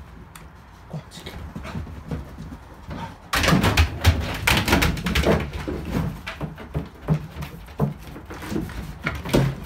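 Springer spaniel clambering over and among plastic jerrycans, setting off a run of hollow knocks, clatters and scrapes of plastic that starts suddenly about three seconds in, after softer scuffling.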